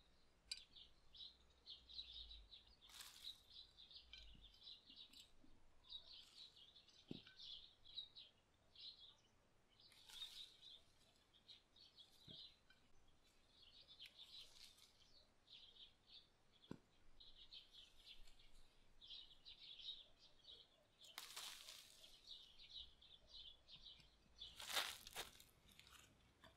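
Faint bird chirping in short repeated bursts, with a few brief rustles, the loudest near the end.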